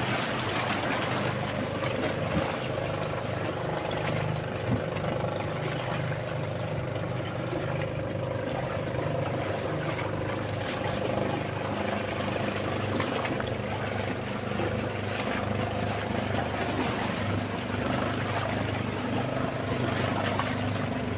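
An engine running steadily, with an even, unchanging drone.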